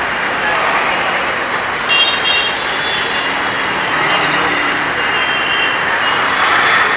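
Steady road traffic noise, with short high-pitched tones cutting in about two seconds in and again around five to six seconds.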